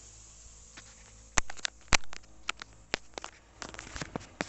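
A string of sharp clicks and knocks, starting about a second and a half in, the two loudest close together near the start: handling noise from the recording phone being picked up and repositioned.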